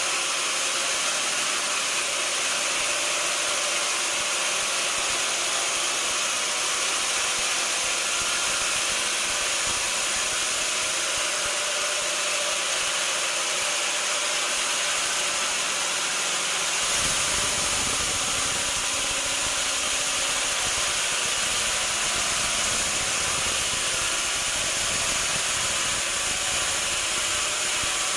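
Sawmill machinery running steadily, a loud, even, mostly high-pitched noise. About seventeen seconds in, a deeper rumble joins it.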